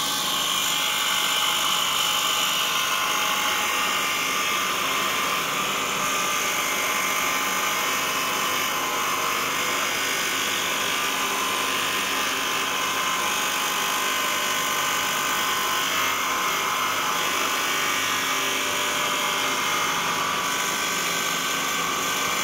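Surface grinder's abrasive wheel running and grinding a metal workpiece: a steady whine with the hiss of the wheel cutting, throwing sparks.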